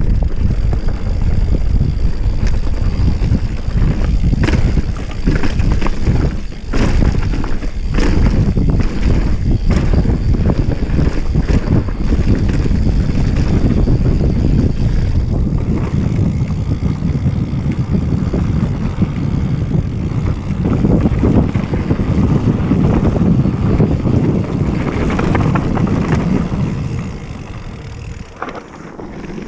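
Wind buffeting the camera's microphone as an Orbea Rallon enduro mountain bike rides fast over rough gravel singletrack: a steady rumble of wind and tyres with frequent knocks and rattles from the bike over bumps. It quietens briefly near the end.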